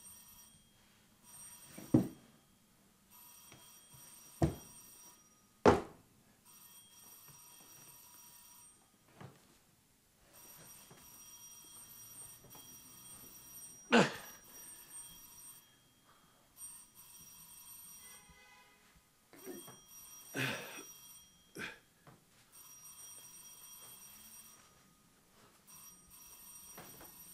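Electric doorbell ringing in long, repeated bursts, with several loud, sudden thumps between the rings.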